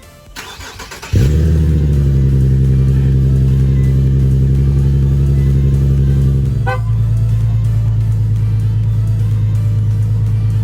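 Nissan 370Z Nismo's V6 engine starting: the starter cranks briefly, the engine catches about a second in and runs at a steady idle. About two-thirds of the way through there is a click and the engine note shifts and settles slightly lower.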